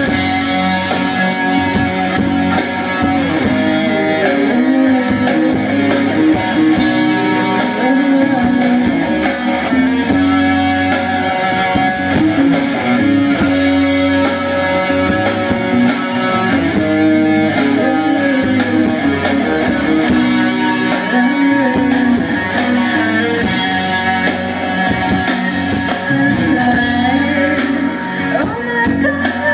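Live band playing an instrumental passage led by guitar, with drums keeping a steady beat.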